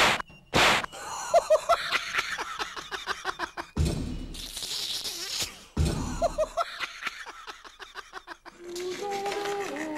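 Sound effects: short sharp swishes, a longer noisy crash around the middle, and rapid chattering clicks in between. Music with held notes comes in near the end.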